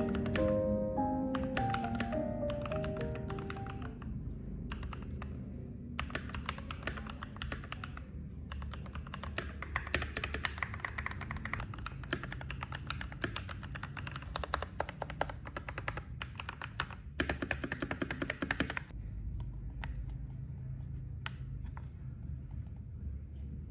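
Typing on a Keychron K4 Pro mechanical keyboard: a fast, dense run of keystroke clicks that thins to a few scattered keypresses near the end. Background music fades out over the first few seconds.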